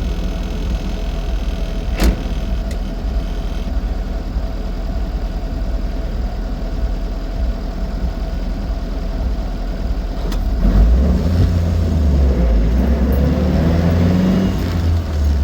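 Austin 7 Ruby driving: the 747 cc side-valve four-cylinder engine and road rumble run steadily, with one sharp click about two seconds in. About ten seconds in the engine gets louder and its pitch climbs as the car pulls harder.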